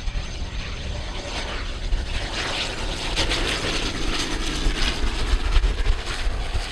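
Silver Airways ATR 42-600's two turboprop engines and propellers running as the airliner passes close by, flaring and touching down on the runway. The sound grows louder toward the middle.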